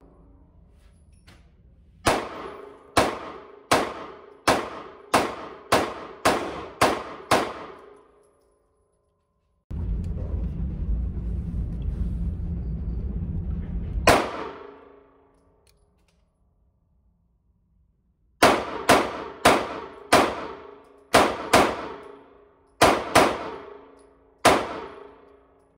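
A 9mm RIA BBR 3.10 subcompact 1911 pistol fired in a fast string of about nine shots, then a single shot, then another string of about ten shots in short groups, each crack echoing in an indoor range. A low rumble is heard for a few seconds before the single shot.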